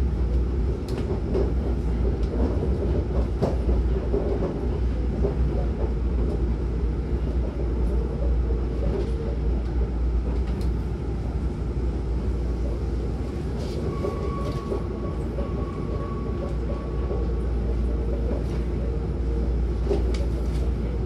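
Hankyu 9000-series electric train running, heard from inside the passenger car: a steady low rumble of the wheels on the rails with scattered clicks from the track. A faint high tone sounds for a few seconds about two-thirds of the way through.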